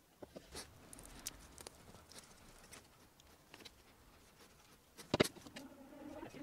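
Faint, scattered small clicks and taps of hands handling a glue tube, a metal nut and a thin wooden stick on a workbench, with one sharper click about five seconds in.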